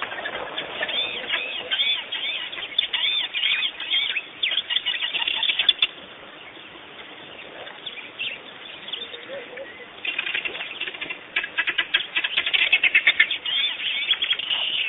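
Birds calling with rapid, repeated high chirps in two busy bouts, separated by a quieter stretch of a few seconds in the middle.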